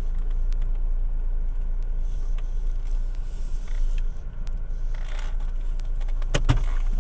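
Steady low rumble inside a car cabin, with scattered light clicks and rustles as a phone is handled and moved. Two sharp clicks come about six and a half seconds in.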